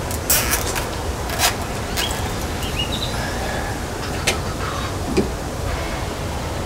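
A handful of sharp, isolated clicks and snaps from hands working wires and plastic zip ties, over a steady low rumble.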